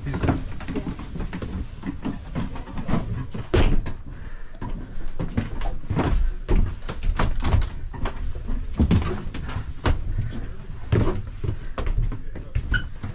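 Irregular knocks, bumps and footsteps of people climbing down the companionway and moving through a sailboat's wooden cabin.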